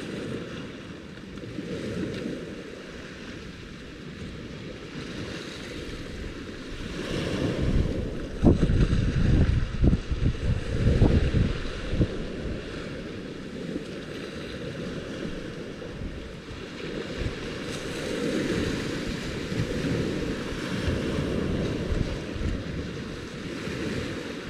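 Wind on an open shoreline buffeting the microphone in gusts, strongest about a third of the way in, over a steady rushing background.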